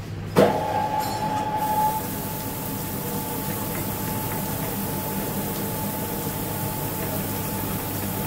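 Cylindrical grinding machine humming, then about half a second in coolant comes on with a sudden splash and runs as a steady hiss of fluid spraying onto the grinding wheel.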